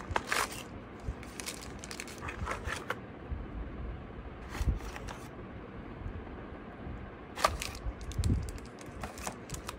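Cardboard box and plastic packaging being handled during unboxing: scattered rustles, crinkles and light clicks as parts are lifted out, including a controller in a plastic bag.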